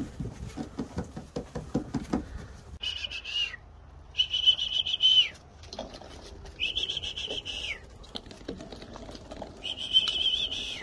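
Gundog recall whistle blown in four blasts, each about a second long and some with a slight warble. It is the signal calling the puppies in, which they have learned to link with their food.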